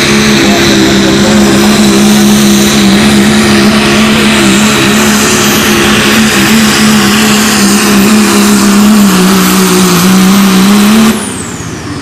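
Modified big-power diesel truck engine running flat out under load in a sled pull, held at one steady, very loud pitch that sags slightly near the end. About eleven seconds in the engine drops off suddenly and a high whistle slides down in pitch.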